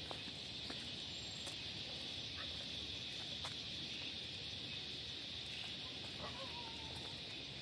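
Steady, high-pitched chorus of insects at dusk. A few faint clicks are heard, and a brief, faint wavering bird call comes about six seconds in.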